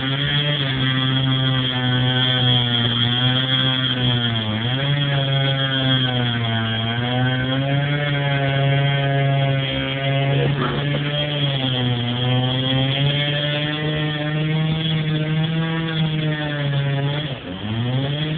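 Two-stroke chainsaw running at high speed while cutting a tree trunk. Its pitch sags briefly a couple of times under load, then drops sharply near the end as the throttle eases off.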